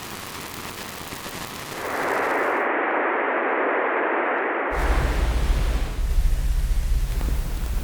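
A run of designed noise sound effects: a faint wide hiss, then from about two seconds in a louder, narrower band of static, which cuts out at about five seconds into a low, rough rumbling noise with hiss over it.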